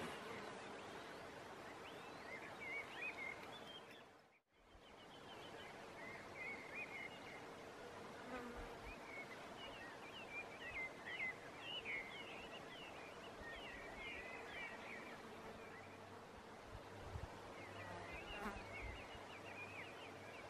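Faint hillside bush ambience: small birds chirping on and off over a steady faint buzz. The sound drops out briefly about four seconds in.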